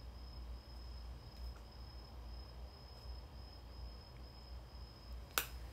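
Quiet room tone: a low hum and a thin steady high-pitched whine, with one sharp click near the end.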